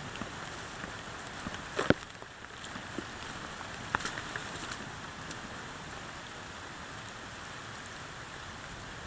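Steady rain falling, with scattered sharper taps of drops, a couple of them louder about two and four seconds in.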